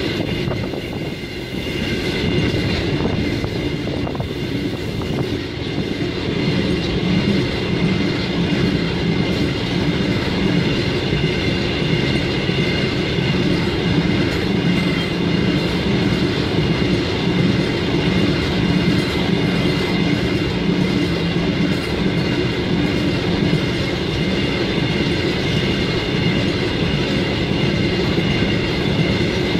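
A train running along the rails: a steady rumble with the clickety-clack of wheels, and a few steady high ringing tones held over it throughout.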